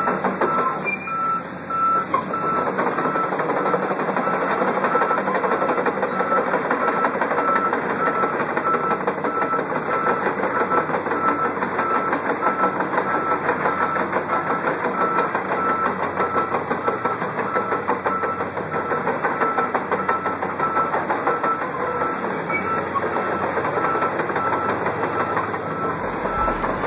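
Volvo crawler excavator travelling along a paved street: its steel tracks clatter steadily over the asphalt under the diesel engine, while a travel alarm beeps in an even series.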